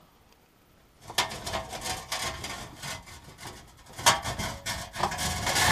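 Irregular scraping and rubbing with small knocks, starting about a second in and loudest near the end. These are parts being handled under the truck while the fuel tank is lowered and its lines are worked loose.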